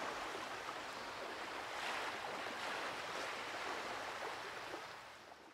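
Ocean waves washing, a steady rushing of surf and water that fades out near the end.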